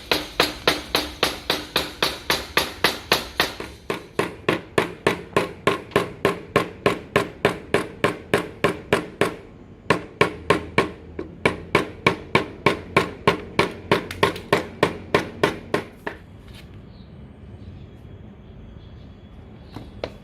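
Hammer blows on wood in a steady rhythm of about three strokes a second, driving dowelled joints together. The blows break off briefly about ten seconds in and stop about sixteen seconds in.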